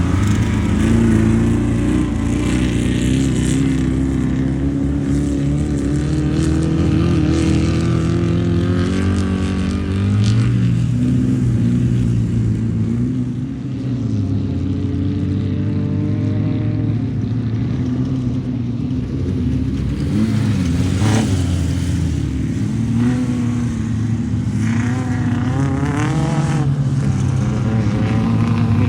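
Several off-road race cars running at once, air-cooled Volkswagen flat-four engines revving up and down. The engines overlap steadily, with their pitch rising and falling as the cars accelerate and back off.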